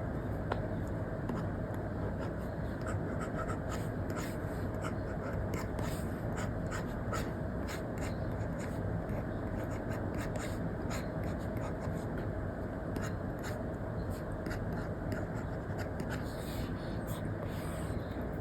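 Apple Pencil Pro tip scratching and tapping in short strokes on an iPad's paper-like screen protector, over a steady background hiss.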